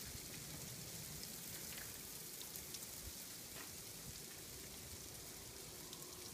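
Sleet falling steadily: an even hiss of ice pellets striking surfaces, with scattered sharper ticks.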